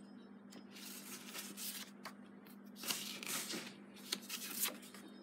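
Stiff patterned paper cards rustling and sliding against one another as they are shuffled and sorted by hand, with a few sharper flicks of card edges.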